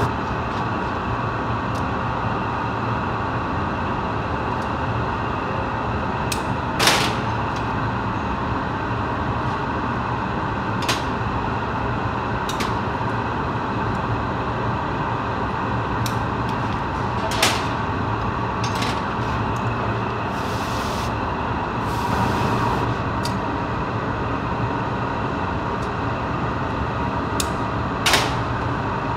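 Steady rushing noise of the glass workshop's gas burners and furnace, with a handful of sharp clicks of metal tweezers and tools against the hot glass and the steel bench, spread through.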